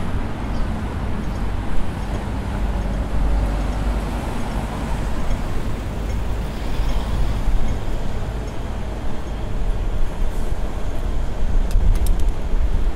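Steady street traffic noise, a low rumble of passing vehicles, with a few sharp clicks near the end.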